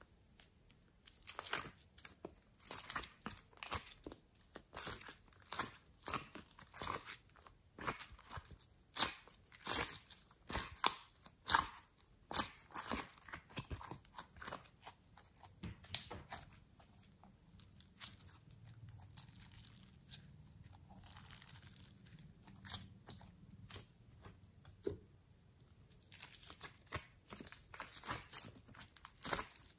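Sticky crackling and clicking of glossy slime being peeled out of a plastic heart-shaped mold tray and squeezed in the hand: irregular sharp snaps, thinning out for a while in the middle and picking up again near the end.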